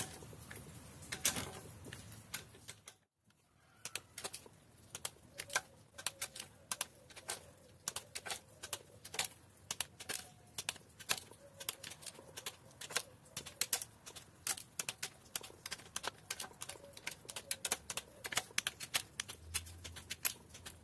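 Ratchet wrench clicking in quick runs as the camshaft cap nuts on an Alfa Romeo twin-cam head are tightened down, with a short break about three seconds in.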